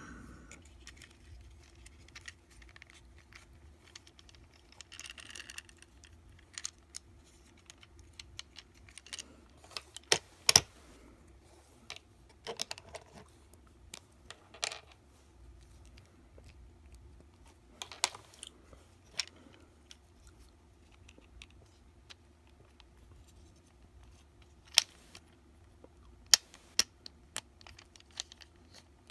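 Hard plastic clicks and snaps from a Transformers Siege Chromia action figure being twisted and folded through its transformation: irregular, scattered clicks, with a few much sharper snaps.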